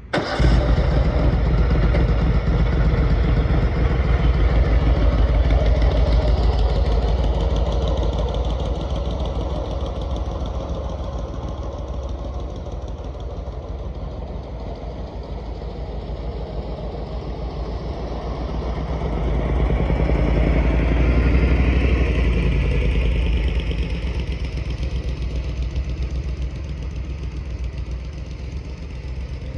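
Riding lawnmower's engine running as the mower is driven, loud at first, fading away, then growing louder again about twenty seconds in before fading once more.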